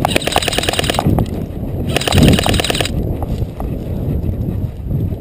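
Airsoft gun firing two rapid full-auto bursts of about a second each, the second starting about two seconds in, each a fast train of sharp clicks with a hiss.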